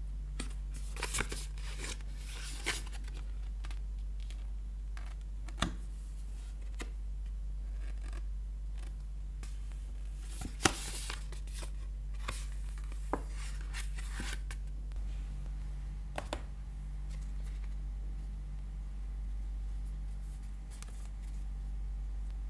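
Stiff white card insert from a clear phone case being flexed and handled in the fingers: papery rubbing and scraping in two stretches, near the start and around the middle, with a few sharp single clicks.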